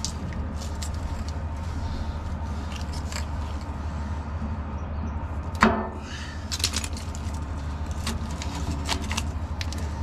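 Electrical tape being pulled off the roll and wound around a wiring harness: scattered crackles and ripping sounds, with one sharp, louder rip about five and a half seconds in, over a steady low hum.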